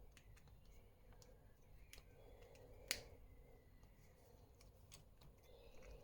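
Faint clicks of pliers working a small piece of stainless-steel wire, with one sharper click about three seconds in, over near silence.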